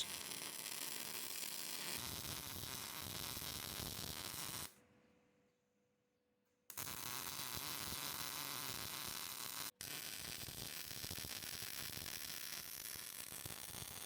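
Electric arc welder running a weld bead around the seams of a stainless-and-carbon-steel San Mai billet, sealing the layers before forge welding: a steady buzzing hiss that cuts off about four and a half seconds in, starts again about two seconds later, and drops out for an instant near ten seconds.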